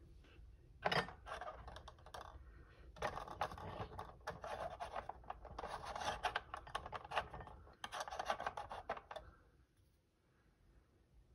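Plastic sliding door of a Lionel O-gauge ammunition stock car slid along its track by hand: a sharp click about a second in, then a stretch of scraping and rubbing that stops near the end.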